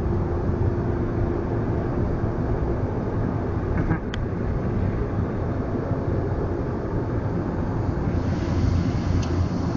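Automatic car wash air dryer blowers running steadily over the car, heard from inside the cabin as a loud, even rush of air that turns hissier near the end.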